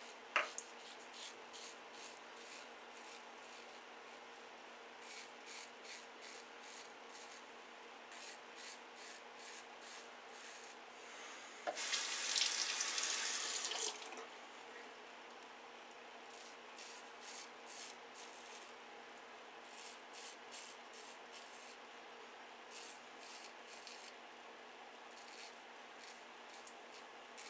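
Shavette half-blade razor scraping through stubble under lather in runs of short, quick strokes. A tap runs for about two seconds near the middle, rinsing the blade, and is the loudest sound.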